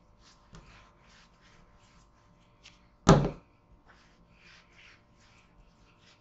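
Wooden rolling pin rolled back and forth over bread dough on a wooden worktop, making soft, repeated brushing strokes. One loud thump against the wooden board comes about three seconds in.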